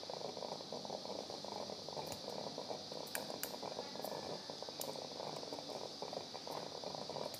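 Quiet operating-room background noise with a handful of faint metallic clicks from steel surgical instruments, needle holder and forceps, handled while suturing the incision.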